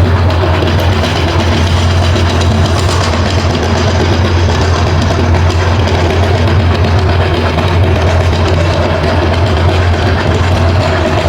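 Meat grinder running steadily with a strong low hum as it grinds Orbeez water beads.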